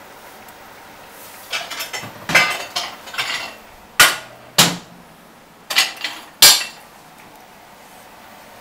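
Kitchen pots, pans and utensils clattering: a string of sharp knocks and clinks, four of them loud, between about one and a half and seven seconds in.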